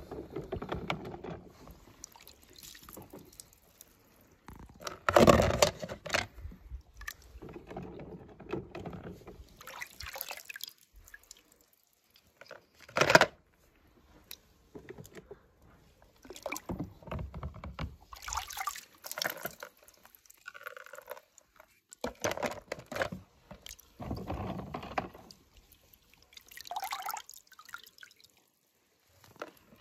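Water splashing, sloshing and dripping in a plastic tub as a hand moves toy cars through it, in irregular bursts with short pauses between, the sharpest about five and thirteen seconds in.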